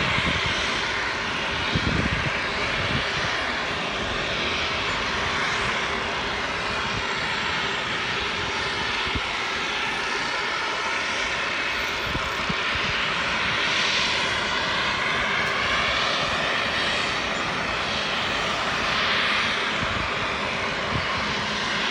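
Airbus A320 jet engines at takeoff thrust: a steady, dense rush of engine noise with faint wavering tones in the upper range, and a few low thumps, one about two seconds in.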